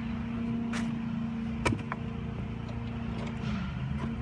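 A pull-start attempt on a 1962 Montgomery Ward Sea King 3 HP single-cylinder outboard motor: a sharp clack about one and a half seconds in, over a steady hum.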